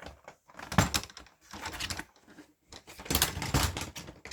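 Small-animal carry case being opened and handled: a series of clicks, knocks and rattles, with a busier cluster about three seconds in.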